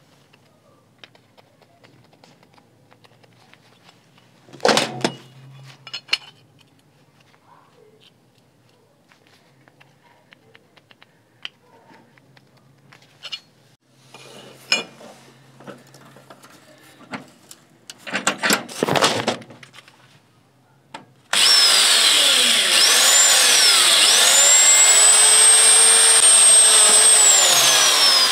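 Handling knocks of steel parts at a bench vise, then, about three quarters of the way in, an electric drill with a step drill bit starts up and runs loud and steady, its motor whine rising and falling in pitch.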